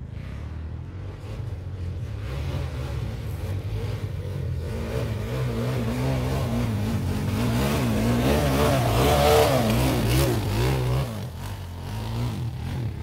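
Sport quad (ATV) engine revving, its pitch rising and falling as the rider accelerates and lets off. It is loudest about eight to ten seconds in.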